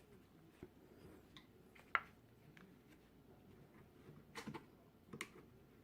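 A few faint, scattered clicks and light taps over a quiet background, the sharpest about two seconds in and a small cluster near the end.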